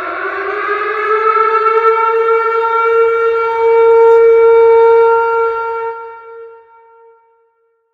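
Tornado warning siren winding up: its tone rises in pitch, holds steady, then fades out about six seconds in.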